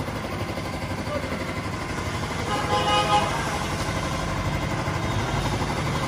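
A motor running steadily with a low rumble, and a short horn toot about halfway through.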